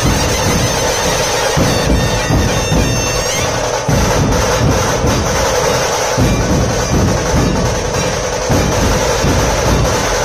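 Maharashtrian dhol-tasha troupe playing: big barrel dhol drums beating under a loud, steady, reedy drone.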